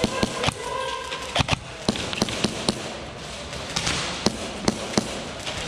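Airsoft gunfire in an indoor arena: sharp, irregular single cracks, about three a second, from shots and BBs striking barricades.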